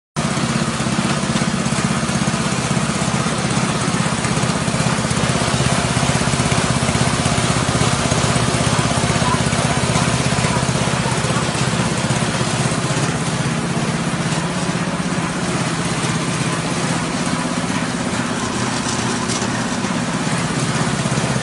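Rice husk grinding mill running under load, driven by its 6.5 hp petrol engine: a steady engine drone under an even rushing noise of husk being milled.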